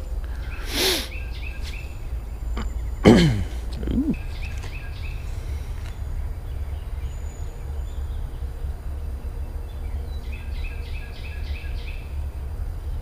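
A bird chirping in quick runs of short repeated notes, three times, over a steady low outdoor rumble. A couple of short, sharper sounds come in the first few seconds, the loudest about three seconds in.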